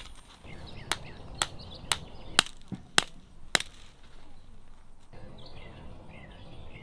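Tent stakes being hammered into gravel with a wooden-handled stake hammer: six sharp strikes about half a second apart. From about five seconds in, faint bird chirps over a soft outdoor background.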